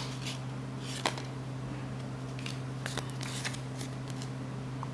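Cardboard trading cards being handled, with a scattering of short flicks and slides as cards are thumbed off a stack, the clearest about a second in, over a steady low hum.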